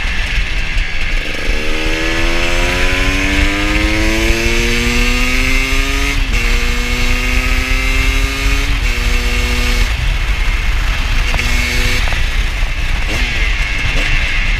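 KTM 250 supermoto's single-cylinder engine pulling hard, its pitch climbing for about four seconds and then dropping sharply at an upshift about six seconds in. It climbs again through another shift near nine seconds, then eases off around ten seconds with a short blip near twelve.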